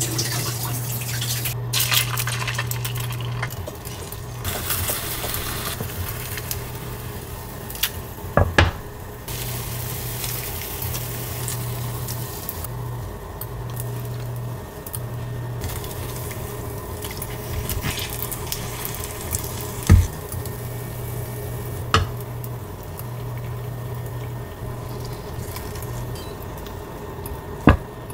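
Egg cooking in a square tamagoyaki pan: sizzling and a silicone spatula scraping and stirring, broken by several sharp knocks of the pan and utensils. A low hum cuts in and out every second or two.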